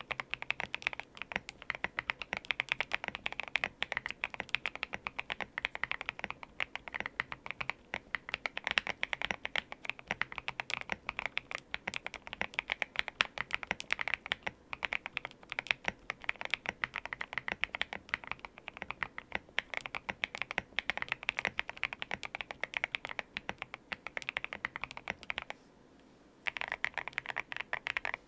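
Fast continuous typing on a GMK87 mechanical keyboard fitted with lubed Gateron Green Apple switches, MOA-profile keycaps and a foam-filled, tape-modded case. The keystrokes stop for about a second near the end, then resume.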